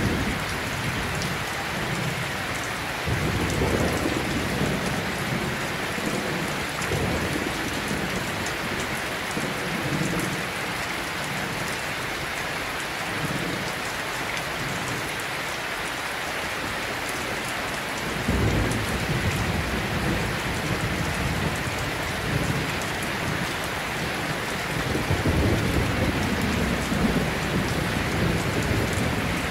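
Steady rain with thunder rumbling low, swelling about three seconds in, again after eighteen seconds, and near the end.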